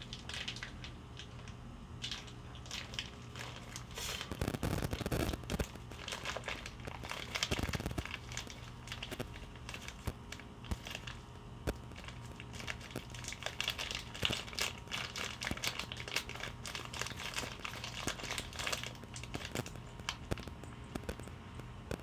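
Packing paper and plastic crinkling and rustling as hands dig through a parts box, with scattered small clicks and a couple of duller thumps as pieces are moved.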